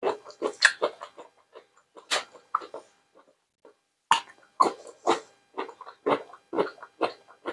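Close-miked eating sounds: irregular wet bites and mouth clicks, then steady chewing at about two chews a second from about four seconds in.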